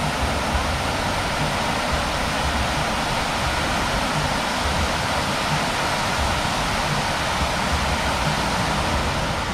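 Rows of tall fountain jets falling and splashing into a pond basin: a steady rush of falling water.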